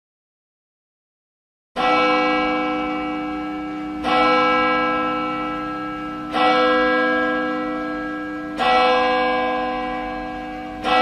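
A single church bell tolling slowly, starting about two seconds in: five strokes of the same note, about one every two and a quarter seconds, each ringing on and fading before the next.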